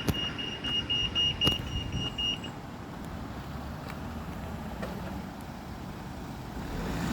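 PEEK pedestrian crossing audible signal beeping rapidly with a high-pitched tone, about four beeps a second, the signal that the green man is showing. The beeping stops about two and a half seconds in, leaving the low steady rumble of road traffic.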